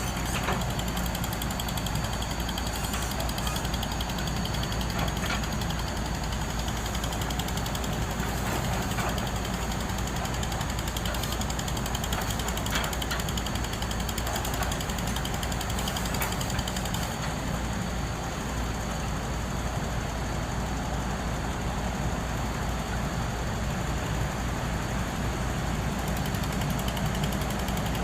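Heavy construction machinery at work: the diesel engines of excavators and a bore pile drilling rig running steadily, with a few faint knocks.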